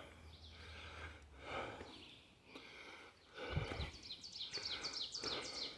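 A hiker breathing hard in regular puffs, about one a second, while climbing a rocky trail. In the second half a bird sings a quick run of high, falling chirps, and there is one low thump.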